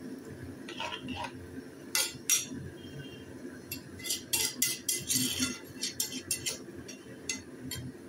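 Spatula stirring chicken curry in a wok, knocking and scraping against the pan in a string of sharp clinks, two loud ones about two seconds in and a quick run of them through the second half.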